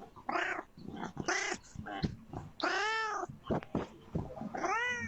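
Domestic cat meowing repeatedly: a few short, rough calls, then two long meows that rise and fall in pitch, about halfway through and near the end. It is begging for food it has been told it cannot have yet.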